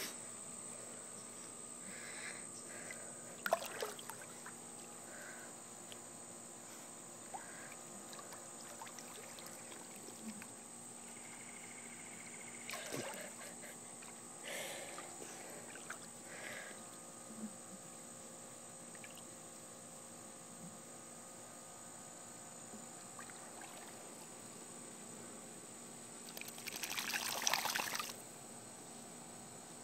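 Pool water lapping and splashing faintly as an English cocker spaniel paddles and dunks her head, with a few short splashes and one louder splash lasting about two seconds near the end.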